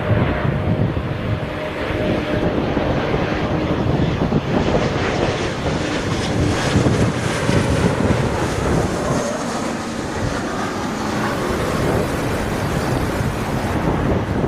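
Strong wind buffeting the microphone over the jet engine noise of a landing Embraer E-190 airliner.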